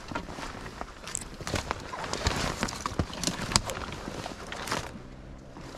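Footsteps crunching through snow and dry brush on a woodland trail, an irregular string of crunches and cracks of twigs underfoot, thinning out near the end.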